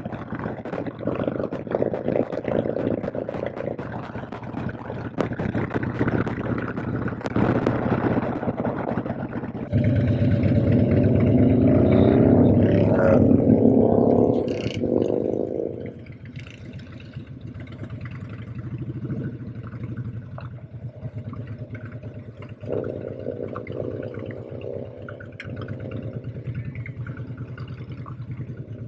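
Harley-Davidson V-twin motorcycle engine running on the road. It gets louder and climbs in pitch under acceleration about ten seconds in, eases off around sixteen seconds, and climbs again a little after twenty seconds.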